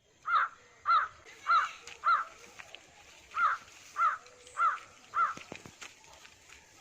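A bird calling in two runs of four calls, about 0.6 s apart, with a pause of about a second between the runs.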